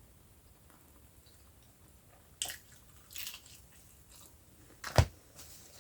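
Close-up eating sounds from a mouthful of KFC food: a few crisp bites and crunches with chewing, then a single sharp knock about five seconds in.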